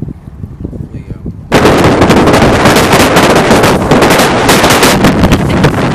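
Motorboat underway with a low motor rumble; about a second and a half in, wind buffeting on the microphone suddenly sets in as a loud, crackling rush.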